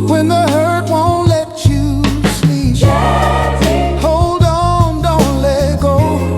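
Motown-style soul music with a sung vocal over bass and a steady drum beat.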